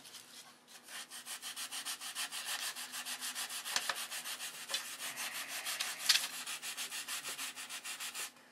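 Sandpaper rubbed by hand over a wooden model-airplane stabilizer in quick back-and-forth strokes, about four a second, starting about a second in, with one louder scrape about six seconds in.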